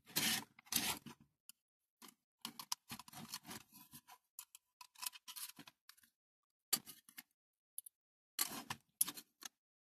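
Intermittent scraping and clicking of a metal hand tool working at the rivets of a diecast toy's baseplate, in short irregular bursts.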